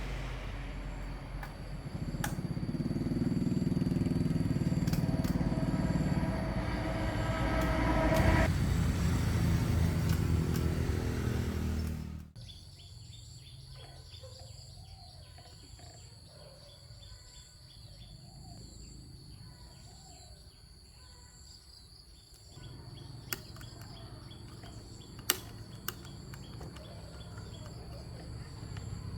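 A small engine running steadily, then an abrupt cut to a quiet stretch of birds chirping over a steady high insect drone, with a low rumble returning near the end and a few sharp clicks.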